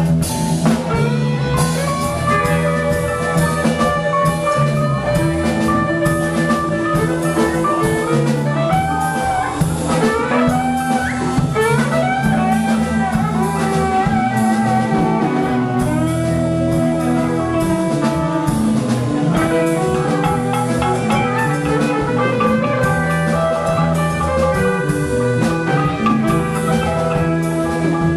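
Live rock band playing an instrumental jam: a bowed fiddle and electric guitars over a drum kit and keyboard, with no singing.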